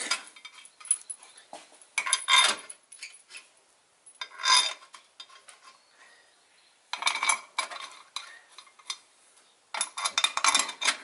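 Loose steel bolts clinking together in a hand in five short jingling bursts a couple of seconds apart, as they are picked out one at a time and threaded by hand into the oil cooler cover of a 6.7 Cummins engine block.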